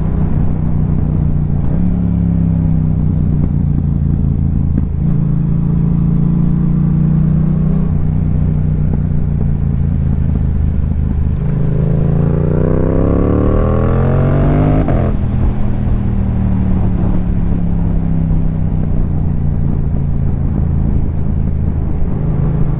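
2022 Yamaha YZF-R7's parallel-twin engine running through a Yoshimura R77 exhaust under steady throttle. From about halfway through it revs up steeply for a few seconds, then falls back abruptly and runs on steadily.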